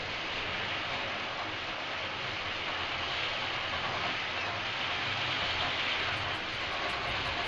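Wind blowing over the microphone, a steady rushing noise.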